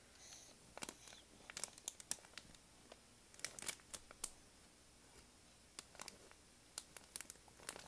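Faint, scattered clicks and soft rustles close to the microphone, in small clusters with quiet gaps between.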